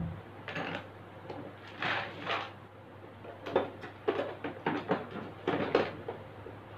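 Hands working on a front-loading washing machine's door assembly: scattered rustles and clicks, then a run of sharper knocks and clacks from parts being handled and fitted, over a steady low hum.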